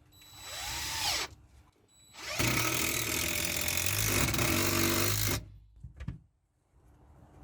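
Power drill spinning up in a short burst, then a loud steady run of about three seconds that cuts off suddenly, as when a screw or hole is driven into a block.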